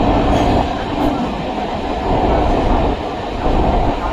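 Suburban electric train running along the track, with a steady rumble of wheels on the rails and a low hum that stops about half a second in.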